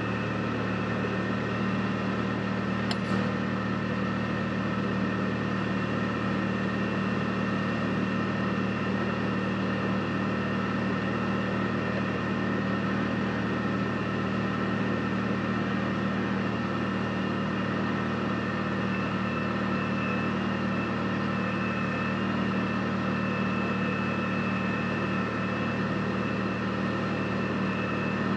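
Side-by-side UTV's engine running at a steady pace on the trail, an even drone that holds constant throughout, with one faint tick about three seconds in.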